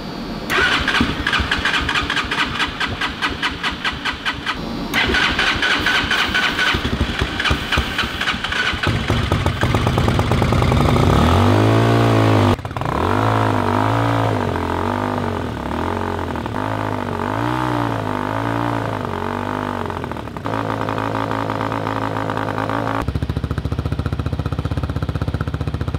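The RPS Hawk 250's single-cylinder four-stroke engine fires up and runs unevenly at first. It is then revved up and down several times with throttle blips and settles into a steady idle near the end. The engine has been revived after being drowned in a pond, with water drained from the exhaust and milky oil flushed from the crankcase.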